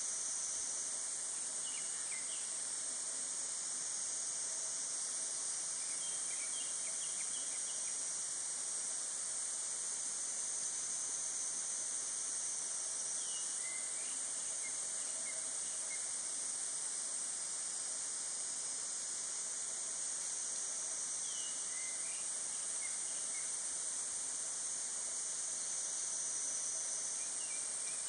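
A steady, high-pitched insect drone fills the forest, with a few faint, short bird chirps here and there.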